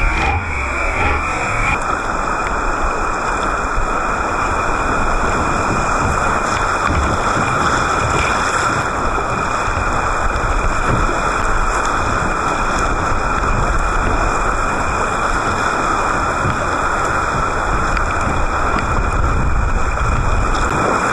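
Whitewater rapids rushing and splashing close to the microphone, a loud, steady rush of churning river water.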